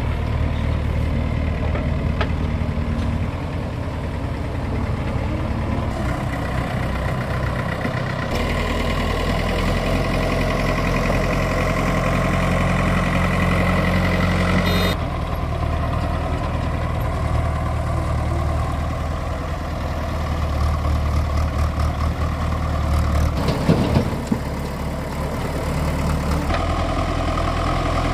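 Heavy diesel earthmoving machinery running steadily, its engine note shifting with the work, with abrupt changes in the sound about 8, 15 and 26 seconds in and a brief clatter of knocks near the end.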